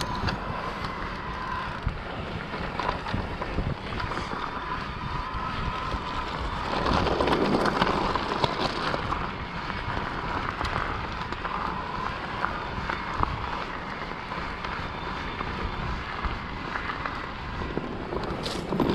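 Mountain bike ridden over a dirt and gravel trail: tyres crunching and the bike rattling over the ground, with wind buffeting the camera microphone and a faint steady whine underneath. The noise swells about seven seconds in for a couple of seconds.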